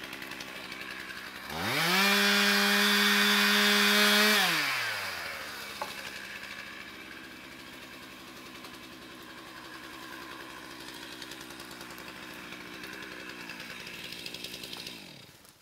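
Two-stroke chainsaw idling, revved up to full throttle about a second and a half in and held there for about three seconds, then dropping back to a steady idle.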